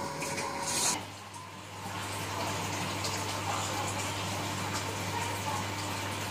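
Steady hum and whooshing air of an oven's fan. A brief louder noise comes just before a second in, after which a low steady hum sets in.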